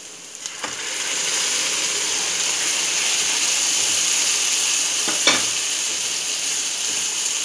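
Sizzling in a hot pan of onions fried in sesame oil. About a second in it jumps up as the cooked banana-flower and toor dal kootu is poured in, then holds steady while the mixture is stirred with a wooden spoon. The spoon knocks once on the pan about five seconds in.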